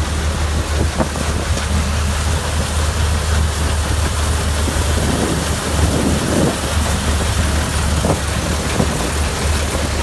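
Combine harvester running steadily while cutting standing wheat: a low engine hum under a broad rushing noise from the header and threshing machinery, a little rougher about five to six and a half seconds in.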